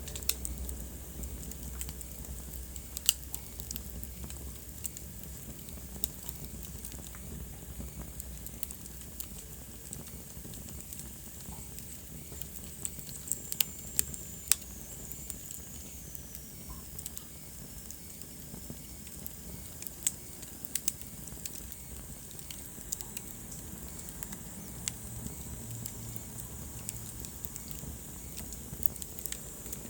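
Wood fire burning in a fireplace: scattered sharp crackles and pops over a low steady rumble. Midway a faint high whistle slides down in pitch.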